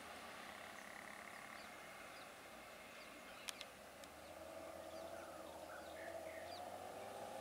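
Quiet roadside ambience with scattered short bird chirps and a single sharp click about three and a half seconds in. From about halfway, a vehicle engine hum starts up and slowly rises in pitch and loudness.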